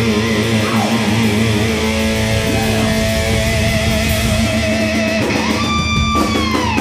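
Live band playing: electric guitar and bass holding sustained notes, with one held guitar note sliding down in pitch near the end.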